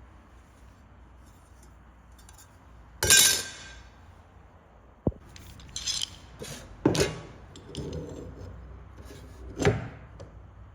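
Hard metal objects being handled, clinking and knocking: about four sharp strikes with a short ring after each, the loudest about three seconds in.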